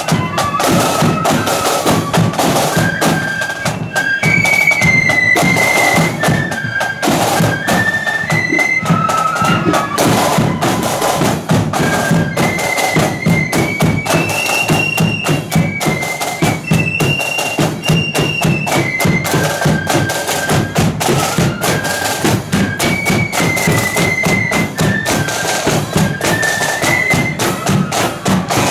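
Marching flute band playing a tune: flutes carry a high melody over steady drumming, with a bass drum in the beat.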